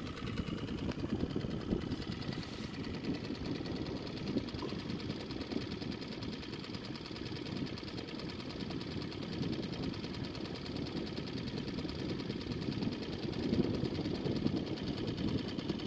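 Small boat's motor running steadily.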